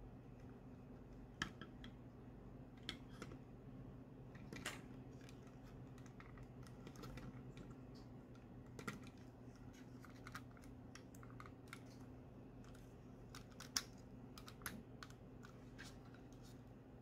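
Scattered quiet clicks and taps of hard plastic as a Robocar Poli Helly transforming toy robot is handled and its limbs are moved, the sharpest click about a second and a half in and another near the end. A faint steady hum lies underneath.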